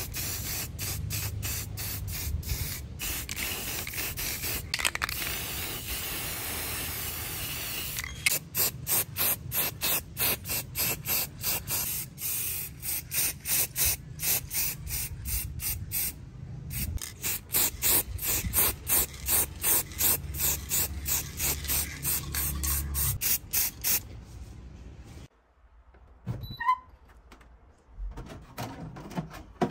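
Aerosol spray can hissing, first in one long continuous spray and then in rapid short bursts, a few a second. About four-fifths of the way through it stops, leaving a few faint clicks of handling.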